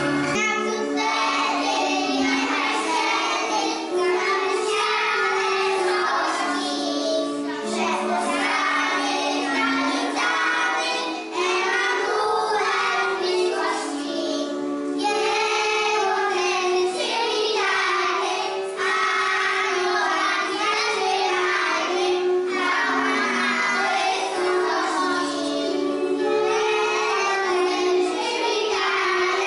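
A group of young children singing a Polish Christmas carol together.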